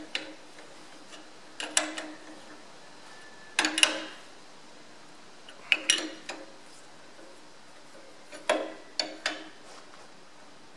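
Sharp metal-on-metal taps, each ringing briefly: a steel spanner striking an Allen key used as a drift against a pivot pin in a Ferguson FE35 tractor's draft linkage. The blows come in about five groups of one to three, roughly every two seconds.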